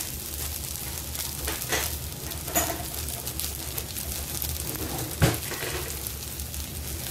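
Sliced okra frying in a little oil in a stainless steel pan: a steady sizzle with a few sharp pops, over a low steady hum.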